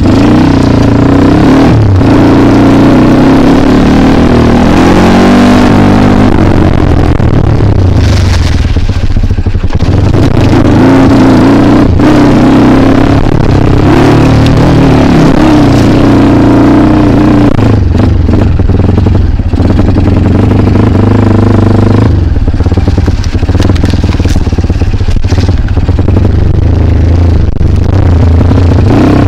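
Dirt bike engine running hard under load, its revs rising and falling again and again as the bike is ridden over an enduro trail. Loud throughout, with rough, clattery noise over the engine note.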